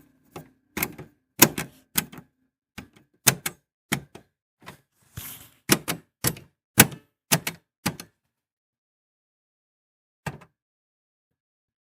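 Buttons on a radio being pressed: about two dozen sharp plastic clicks at an irregular pace, some in quick pairs, over the first eight seconds, then a pause and a single click later on.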